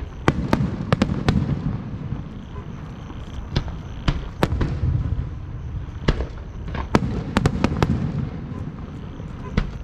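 Aerial fireworks shells bursting: many sharp cracks in quick clusters, over a continuous low rumble of booms.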